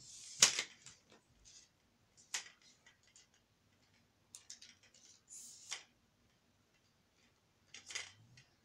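Sharp plastic clicks and snaps of a cheap tripod's legs and leg-extension clips being pulled out and set, a handful of separate clicks a second or two apart, the loudest about half a second in.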